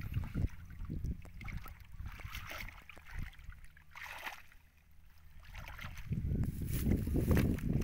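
Hands sloshing and splashing in shallow muddy water while feeling about in the mud for fish. Quieter in the middle, louder again for the last couple of seconds.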